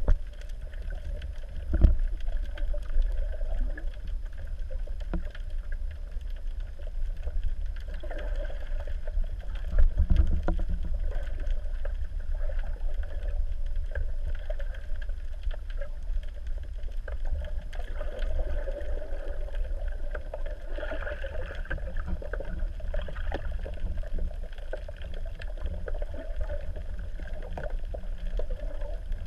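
Muffled underwater noise heard through a waterproof camera housing: a steady low rumble of moving water, with faint scattered clicks and crackles. Dull thumps come about two seconds in and about ten seconds in.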